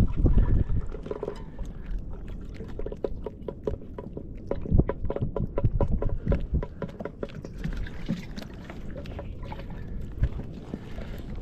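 Gear and hull handling noise on a fishing kayak. A quick, uneven run of small clicks and knocks plays over low wind rumble, with a few louder thumps near the start.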